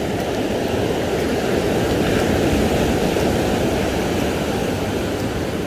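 Ocean surf breaking and washing up a beach: a steady, loud rush of waves that swells a little about two seconds in.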